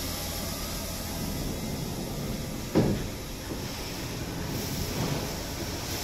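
Steady hiss and hum of a CNC vertical machining center, with one loud thud about three seconds in as its sliding guard door is shut, and a lighter knock a couple of seconds later.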